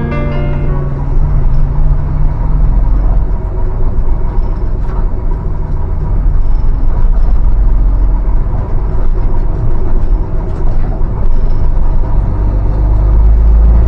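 Saviem S45R bus's diesel engine running under way, a steady low rumble heard from the driver's seat inside the cab, getting a little louder near the end.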